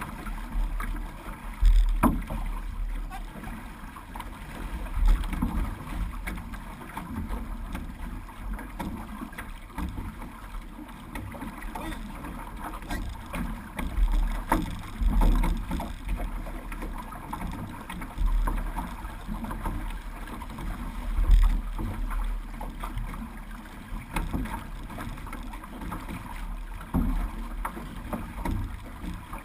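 Water splashing and rushing along the hull of an OC6 outrigger canoe under paddle, with irregular louder surges every few seconds as paddles dig in and water slaps the hull. Low rumbles of wind buffet the microphone.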